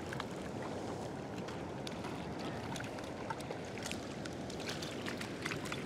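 Steady hiss of shallow ocean wash running over a rock shelf, with scattered small splashes and ticks.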